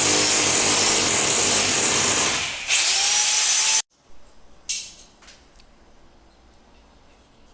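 Electric rotary hammer drilling into a concrete beam for expansion-bolt holes, running loud with a high whine that wavers under load. It stops briefly, spins up again with a rising whine, then cuts off abruptly just under four seconds in, leaving only a few faint knocks and clicks.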